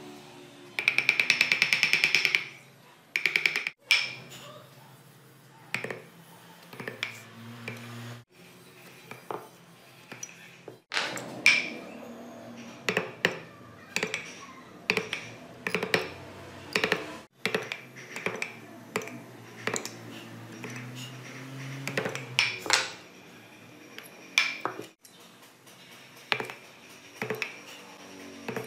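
Wooden mallet tapping a wood-carving gouge into a small wooden wheel. A quick run of rapid light taps comes about a second in, then sharp single knocks about once a second.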